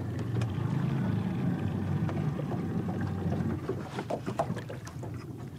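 Small boat's motor running at low speed, easing off and dropping in level about three and a half seconds in as the boat comes up beside a jug float. A few light knocks follow near the end.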